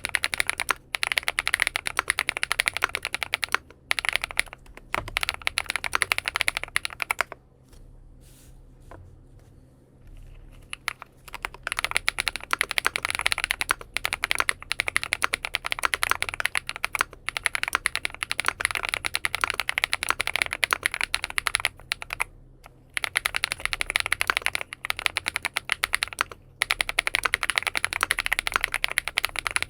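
Typing on a XINMENG M71 full-aluminium 60% keyboard fitted with BSUN Bunny switches: fast, dense runs of key clacks, with a pause of a few seconds about a third of the way in and several brief breaks.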